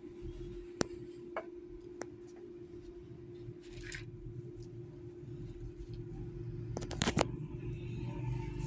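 Plastic-wrapped card boxes being handled: a few sharp clicks in the first two seconds, a short rustle about four seconds in, and a quick cluster of clicks about seven seconds in, over a steady low hum.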